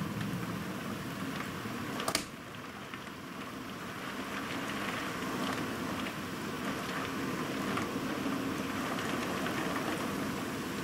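Heavy rain falling steadily, with scattered drops ticking on nearby surfaces. There is one sharp click about two seconds in.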